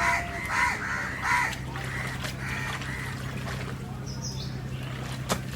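Crows cawing repeatedly, one call after another over the first three seconds, over a steady low hum. A sharp click comes near the end.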